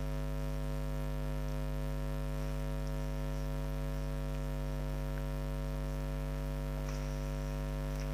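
Steady electrical mains hum with a stack of even overtones, unchanging throughout, picked up on the recording. A couple of faint ticks sit on top of it.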